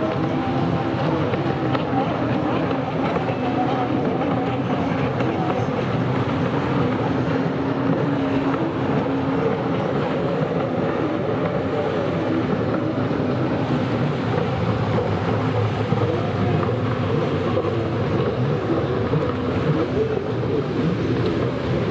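Racing stand-up jet ski engines heard from a distance, their pitch rising and falling as the riders throttle through the turns, over a steady hiss of water and wind.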